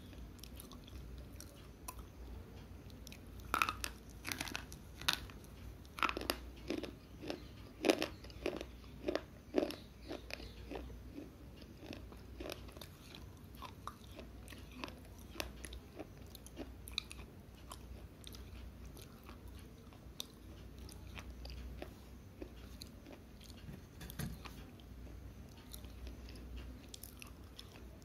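Dry slate pencils being bitten and chewed right at a clip-on microphone: a quick run of loud, sharp crunchy snaps, closest together in the first third, then fainter, sparser crunching as the pieces are chewed.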